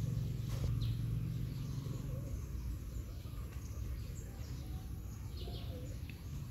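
Outdoor ambience with a few faint, short bird chirps and a low hum that fades out about two seconds in.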